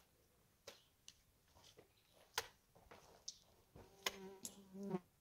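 Faint scattered clicks and knocks of stones and mud being worked on a dry-stone wall. Near the end a fly buzzes close by for about a second, a steady hum.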